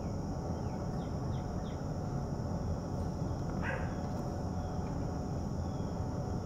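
Dusk outdoor ambience: a steady low rumble under a constant high insect chorus, with a few short bird chirps about a second in. A little past halfway an animal gives one cry that slides down in pitch.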